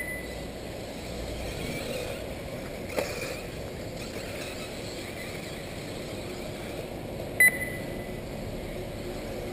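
Electric 1/8-scale RC off-road buggies running on the track, heard as a steady low noise, with a sharp click about three seconds in and one short, high electronic beep about seven seconds in.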